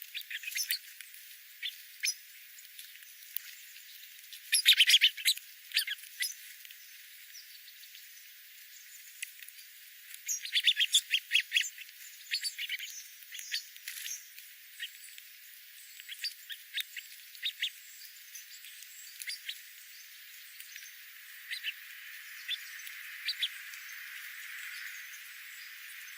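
Small birds chirping: short, high chirps scattered throughout, with two quick runs of rapid chirps about 5 and 11 seconds in. A soft hiss rises near the end.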